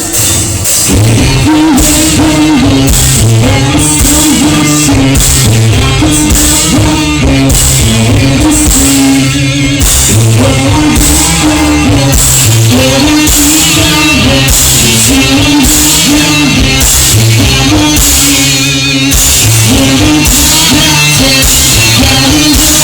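Rock band playing live and loud: a drum kit with crashing cymbals, guitars and bass repeating a riff about every two seconds, with some singing.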